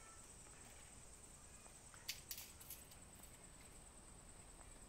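Near silence, with a faint steady high-pitched whine throughout and a brief cluster of sharp clicks about two seconds in.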